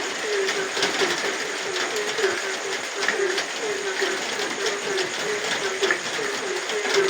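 Frogs croaking in a steady chorus of short, low calls, several a second, over the steady hiss of rain.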